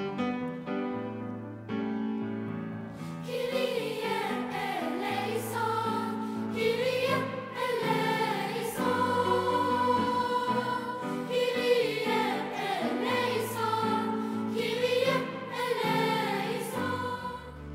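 Girls' choir singing a sacred choral piece over instrumental accompaniment. The accompaniment's held chords sound alone at first, and the voices enter about three seconds in.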